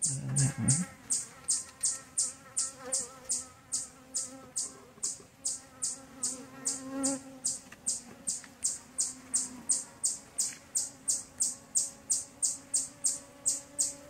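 Honeybees humming over an open hive, a low, wavering drone. Over it, a steady high-pitched chirp repeats about three times a second, louder than the hum.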